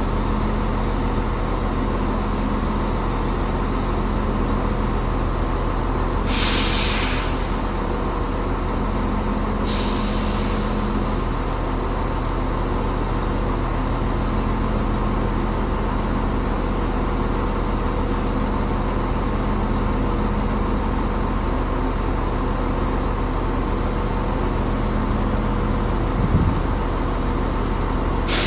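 Chiltern Railways diesel multiple unit idling at a station stop, its engines running as a steady drone. Short hisses come about six and ten seconds in and again at the very end, with a brief low thud shortly before the last hiss.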